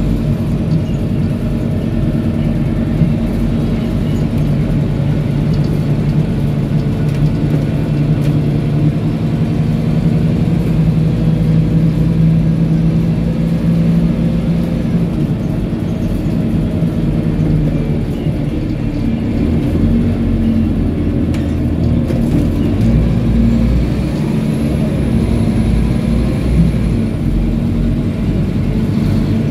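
Interior sound of a 2010 Scania K230UB bus under way: the rear-mounted five-cylinder diesel engine runs steadily, its note swelling and easing as the bus pulls away and slows, with road and body noise underneath.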